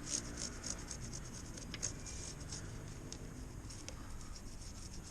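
Faint, irregular scratching and small ticks from a motorcycle drive chain being worked over and oiled by hand.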